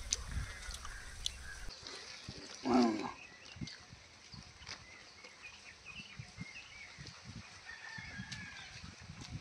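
A single short, loud squawk from a domestic fowl about three seconds in, over faint chirping of small birds.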